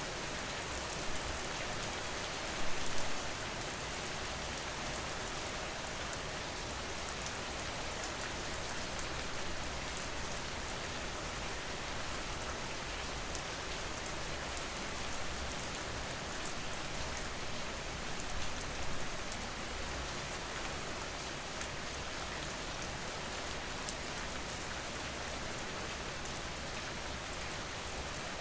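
Steady rain falling on a surface, a continuous even hiss with close drops ticking through it; it swells briefly about three seconds in and again around eighteen seconds in.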